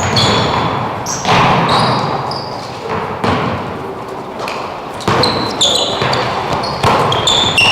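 A basketball bouncing on a gym floor during play, with short high squeaks from sneakers on the court scattered throughout and several sharp thuds.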